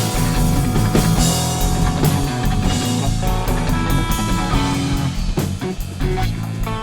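Rock music played by a band with electric guitars, bass and a drum kit, with a steady beat.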